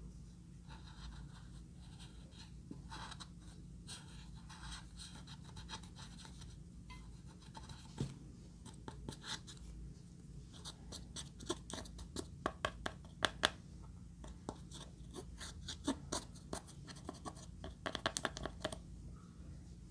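A plastic stick scratching and scraping pressed powder eyeshadow out of a palette pan: a faint run of short scratches and clicks, sparse at first and busiest in the second half.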